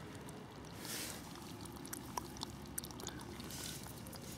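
Faint low background rumble with scattered light clicks and ticks, and two brief soft rustling swells, about a second in and again past three and a half seconds.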